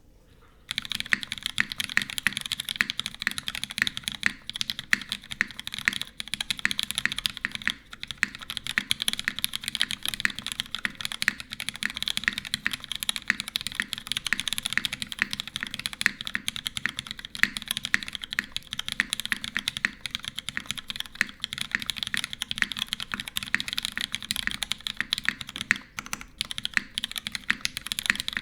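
Continuous fast typing on a custom mechanical keyboard with lubed Cherry MX Black (MX2A) linear switches in a full aluminium plate with no foam, under GMK keycaps: a dense, uneven stream of keystroke clacks that starts about a second in.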